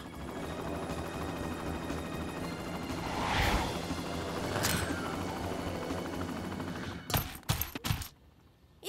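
Cartoon helicopter rotor chopping steadily with rapid beats, swelling a few seconds in. About seven seconds in come a few sharp knocks, then a brief hush.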